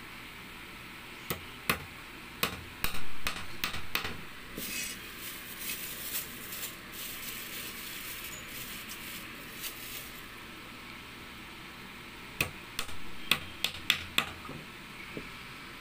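A hammer driving wire nails into a wooden batten, with sharp metal-on-metal strikes coming in quick runs: about seven in the first few seconds and another run near the end. In between there is a stretch of lighter rustling and clinks.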